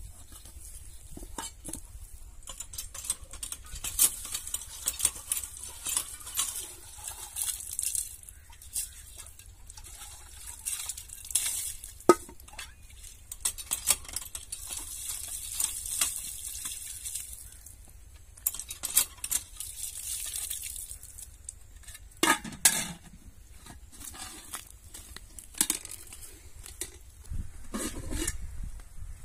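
Irregular clinks, scrapes and knocks of utensils against pots and dishes while cooking, with a louder clatter about three-quarters of the way through.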